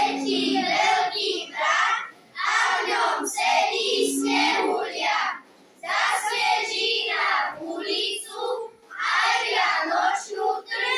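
Children's voices singing a song in short phrases, with held notes between brief pauses.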